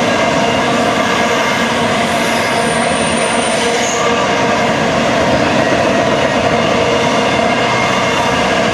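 Union Pacific double-stack intermodal freight train rolling past, a steady rumble of container well cars and their wheels on the rails.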